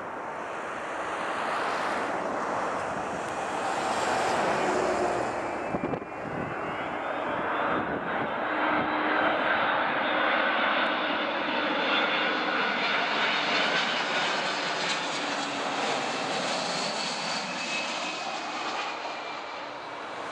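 Airbus A300-600R freighter's twin turbofan engines passing low overhead on landing approach: a building rush of jet noise, then a whine that slowly falls in pitch as the aircraft goes past and away, fading near the end.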